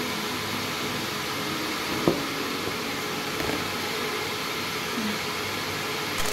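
Steady whooshing hum of an electric fan running, with a single light knock about two seconds in.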